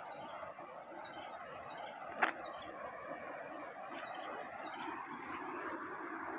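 Steady rush of a river flowing over rocky rapids, with one sharp click about two seconds in.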